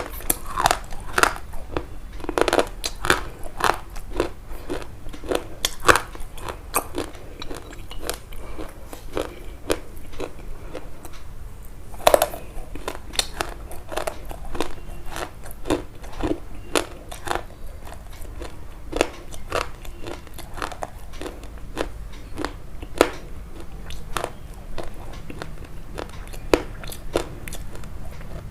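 Close-miked crunching of something crisp being bitten and chewed, about two or three sharp crunches a second, with a few louder bites along the way.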